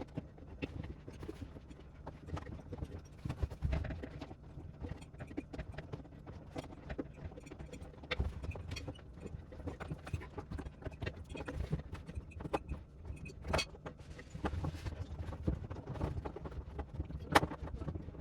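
Irregular clicks, taps and knocks of hands and tools working on a washing machine's door seal area, with a sharper click about 17 seconds in.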